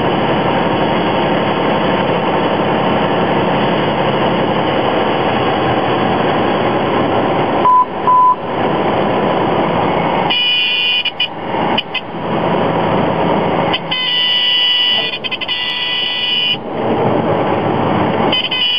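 Cabin noise of a Cessna 182S landing: the Lycoming IO-540 engine and propeller at low power with air rushing past. About eight seconds in come two short beeps, and from about ten seconds a high steady horn sounds on and off, the stall warning horn going as the plane slows in the flare and touchdown.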